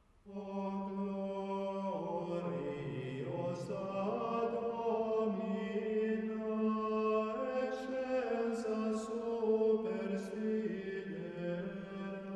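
Opening theme music of chant-like voices holding long sustained chords that shift in pitch in steps.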